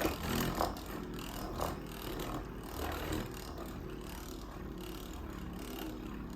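Metal Fight Beyblade Storm Pegasis 105RF spinning in a plastic attack-type stadium, its rubber flat tip gripping the floor as it sweeps round in a flower pattern: a steady scraping whir, with a few light knocks in the first two seconds.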